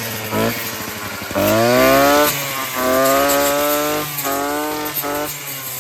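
Proyama chainsaw engine running, its pitch climbing sharply about a second and a half in, then dropping and rising again several times as the throttle is worked.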